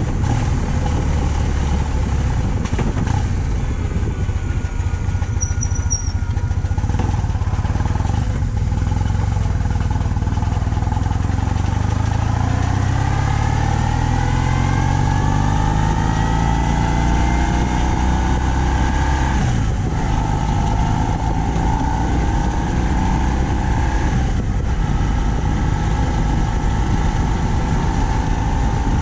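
BMW R 1200 C motorcycle's boxer-twin engine running on the move. A little before halfway its pitch rises steadily for several seconds as the bike accelerates, and later there are two short breaks in the engine note.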